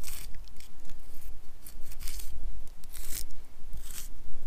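Footsteps crunching through dry leaves, twigs and brush on a woodland trail, one crunch about every second, over a steady low rumble.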